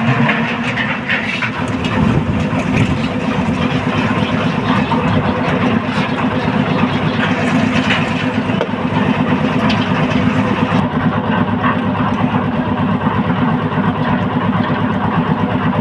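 Concrete mixer's engine running steadily under load, a loud continuous drone.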